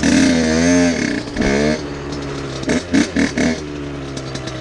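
Two-stroke dirt bike engine revved in short bursts that rise and fall in pitch, twice near the start, then a quick run of about four throttle blips around three seconds in, settling to idle between them. It is the clutch-and-throttle work of a first attempt at lifting the front wheel.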